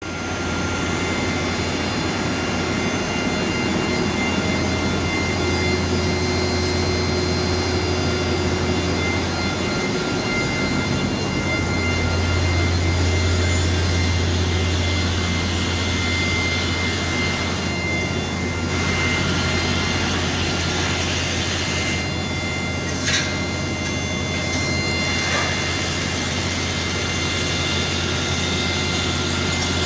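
Zerma PU500 plastics pulverising system running: a steady, loud mechanical drone with a strong low hum and several steady high whines over it. A single sharp click about three-quarters of the way through.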